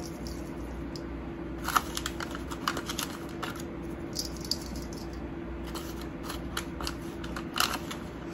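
A plastic spoon scooping and shaking spice powder over raw chicken in a stainless steel bowl, giving scattered light clicks and taps. A steady low hum runs underneath.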